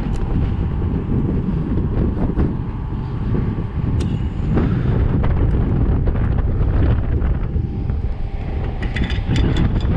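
Wind buffeting the microphone as a steady low rumble, with a few sharp clicks, one about four seconds in and a quick cluster near the end.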